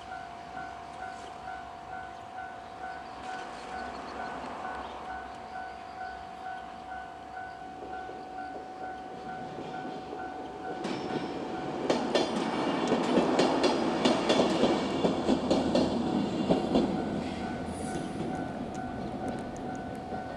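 A Japanese level-crossing alarm dings steadily and rhythmically as a JR West 103 series electric train comes up and crosses. Partway through, the train's running noise and the clatter of wheels over the rail joints build up and are loudest for several seconds. The train noise then fades while the crossing bell keeps ringing.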